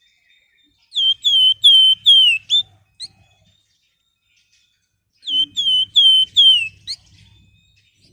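Javan fulvetta (sold as 'flamboyan') singing two phrases of clear whistled notes, five or so slurred-down whistles in quick succession ending with a short upward note, the second phrase about four seconds after the first.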